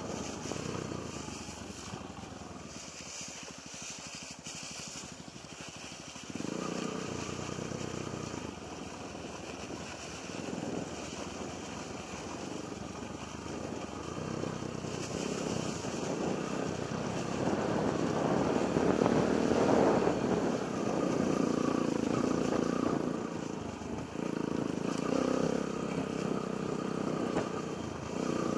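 Yamaha XTZ125 trail bike's single-cylinder four-stroke engine running off-road. It is quieter for the first several seconds, picks up, and is loudest a little past the middle, with the revs rising and falling as it is ridden.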